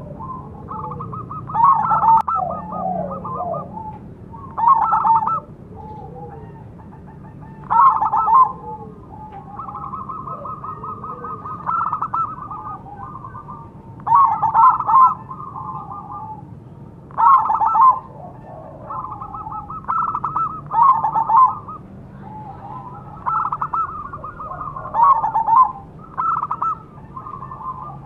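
Zebra doves (perkutut) singing back and forth: short phrases of rapid staccato coos every two to three seconds. Loud bright phrases alternate with longer, even runs of pulsed notes.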